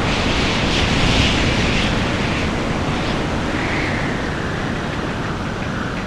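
Storm at sea: a steady rush of wind and crashing waves that swells in the first couple of seconds and then eases a little.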